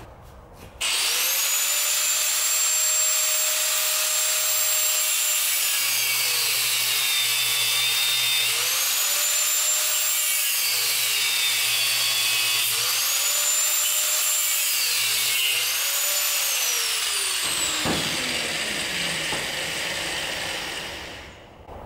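Electric angle grinder starting up and grinding into the steel eye of a leaf spring to cut out the old bushing. Its motor pitch drops three times as the disc is pressed into the work and recovers in between, then the grinder winds down near the end.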